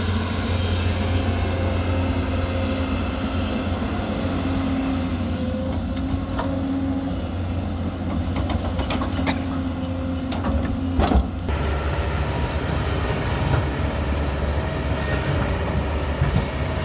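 Diesel engine of heavy earthmoving equipment running steadily, with a few short metallic knocks and clanks, the loudest about eleven seconds in.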